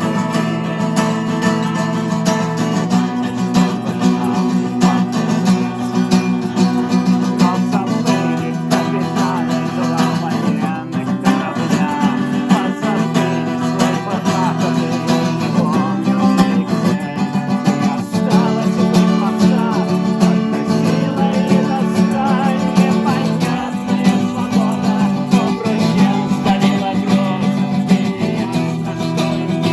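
Acoustic guitar music: a strummed accompaniment with held low notes and a melody line over it, playing without a break.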